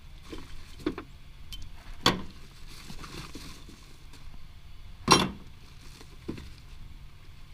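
Small pieces of scrap metal clinking and knocking as a gloved hand rummages through a bag of scrap. There are a few scattered knocks, with two louder clanks about two and five seconds in.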